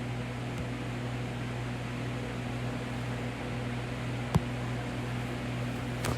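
Steady low fan hum over a faint hiss, with a sharp click about four seconds in and a fainter click near the end.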